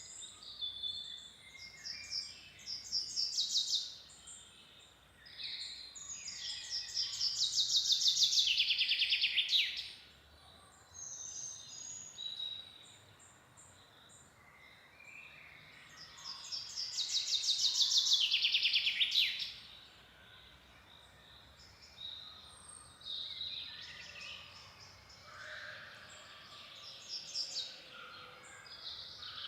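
Songbirds singing and chirping. One bird gives a loud song of rapid repeated notes that fall in pitch and grow louder, about three seconds long, twice, with shorter calls from other birds between.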